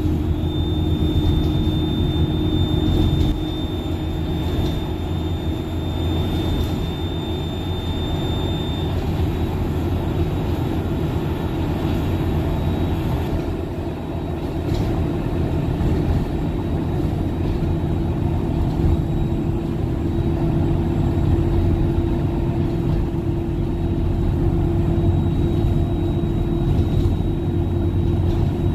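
Steady engine and road noise heard from inside a moving bus's cabin. A thin high whine sits over the rumble for about the first third, then fades.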